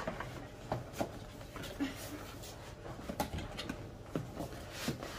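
Cardboard box being handled: an inner box slid out of its outer sleeve and its lid lifted open, giving a string of light knocks, scrapes and rustles.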